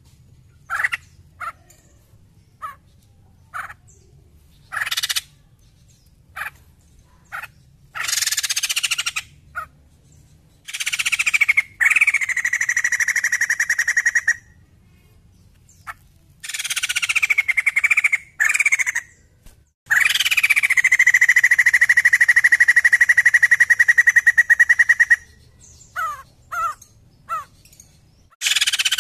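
White-crested laughingthrush calling: a string of short separate calls, then several long phrases of fast chattering, each lasting a few seconds, the longest about five seconds near the end.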